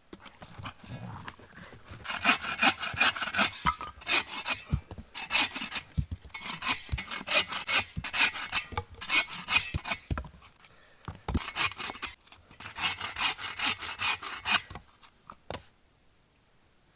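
Hand saw cutting wood with quick back-and-forth strokes, in three bouts with short pauses between.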